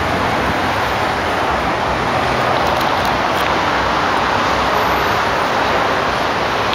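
Steady road traffic noise from the busy city streets below, an even wash of passing cars with no distinct events.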